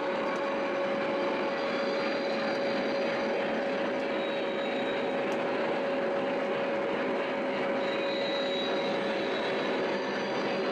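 O gauge model train running on the track: a steady rolling rumble of wheels on rail with a constant hum.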